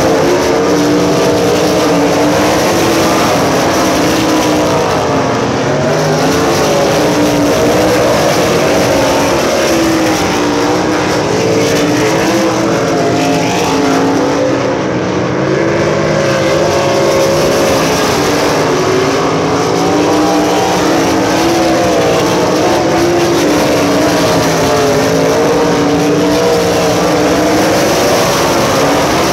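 A field of USAC Silver Crown race cars running laps on a dirt oval, several engines at once, their pitch rising and falling as the cars circle the track.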